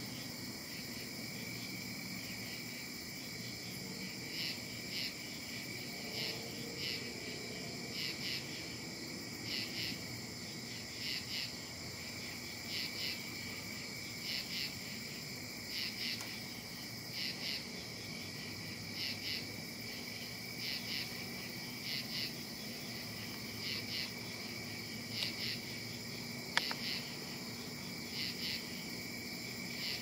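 Background insects singing: a steady high-pitched drone with short chirps laid over it, often in pairs, repeating every second or so. A single sharp click a few seconds before the end.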